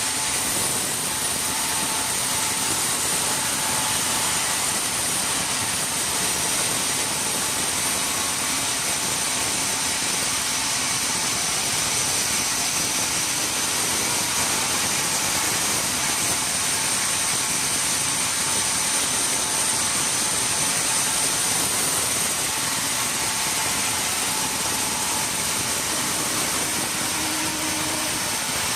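Sawmill machinery running steadily, a constant mechanical noise with a steady high whine over it.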